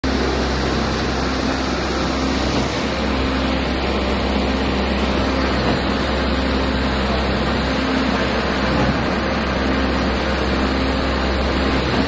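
Steady diesel engine noise from an ABT40C diesel concrete pump and a self-loading concrete mixer working together, the mixer discharging concrete into the pump's hopper.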